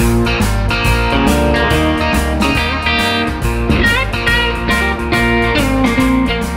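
Background music with guitar and a steady beat, starting suddenly.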